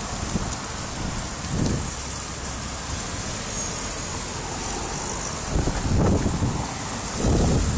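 Gusty wind ahead of a storm, buffeting the microphone in low rumbles over a steady hiss, with the strongest gusts about two-thirds of the way through and near the end.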